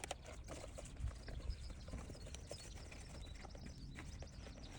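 Light rubbing, scraping and small irregular knocks of the car's heater blower motor and fan being handled and wiped clean by hand.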